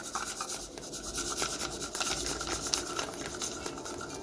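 Pot of wort at a rolling boil on a stovetop, a steady crackling, bubbling hiss with many small irregular pops.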